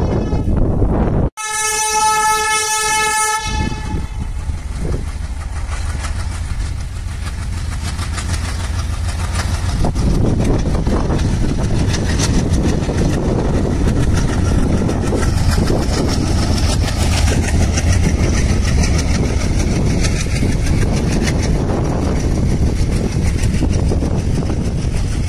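WDM-3A diesel locomotive sounds one horn blast lasting about two seconds. Then the locomotive and its passenger coaches run past with a steady rumble.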